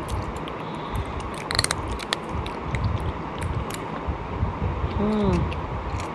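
Close-up chewing and biting of cooked sheep's head meat, with wet mouth noises and small sharp clicks throughout. A short hum is heard about five seconds in.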